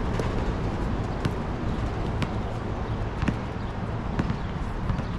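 Basketball being dribbled on a hard outdoor court, sharp bounces about once a second over a steady background rush.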